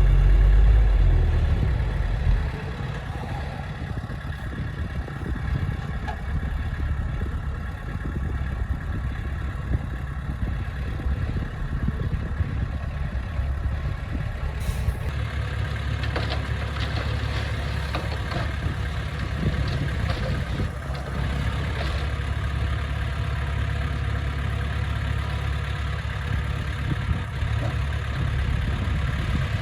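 Diesel engine of heavy earthmoving equipment running steadily. It is loudest and deepest for the first two seconds, then settles to a steady run with some clatter in the second half.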